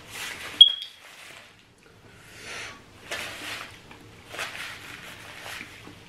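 Brown paper napkin rustling and crumpling in a series of short bursts as hands are wiped with it, with one sharp click about half a second in.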